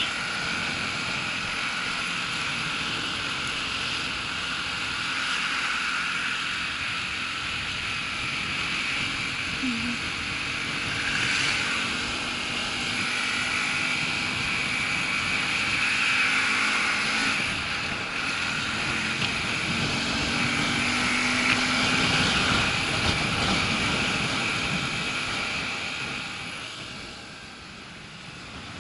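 Motorcycle riding along a road: steady engine and wind noise as heard from a camera mounted on the bike. The noise eases off near the end.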